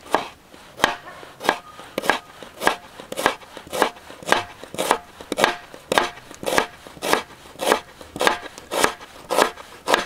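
Red onion being sliced with a knife on a plastic cutting board: a steady run of sharp cuts, about two a second, each stroke going through the onion and tapping the board.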